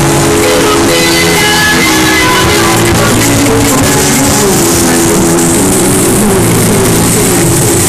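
Loud music with guitar-like melodic lines, played at a constant, very high level through a trailer-mounted car-audio sound system.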